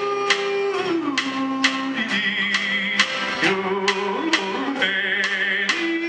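Live country band music: a man singing long, slowly gliding held notes over strummed acoustic guitars, upright bass and a steady drum beat, with a fiddle coming in twice on wavering high notes.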